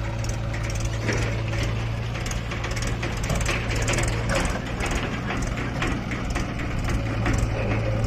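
Steady drone of diesel engines running from the backhoe loader and tractor, with repeated clatter and knocks of soil and clods tipped from the backhoe bucket into the tractor's trailer.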